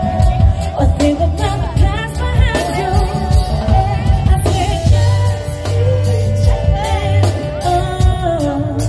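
Live band playing through a loud outdoor PA: a woman singing long held notes over acoustic guitar, electric bass and a steady drum beat.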